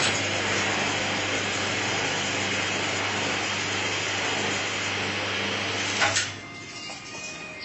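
Electric coconut trimming machine running, its blade shaving the husk off a green coconut: a steady motor hum under a constant scraping noise that stops suddenly about six seconds in.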